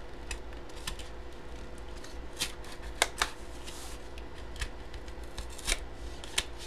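Cardboard mystery box being opened by hand: scattered rustles, short scrapes and sharp clicks of cardboard, the sharpest about three seconds in.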